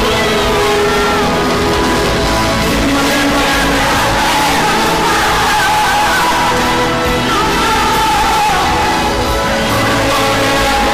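Loud pop-rock music playing steadily, with held and gliding melodic lines.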